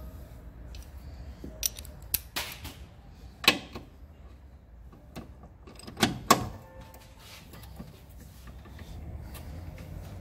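Metal socket tools and extension bars clinking and knocking against engine parts: a few sharp metallic knocks, the loudest about three and a half and six seconds in.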